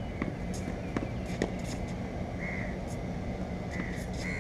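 Outdoor ambience: a steady low rumble with a faint hum, a few scattered faint knocks, and several short chirps.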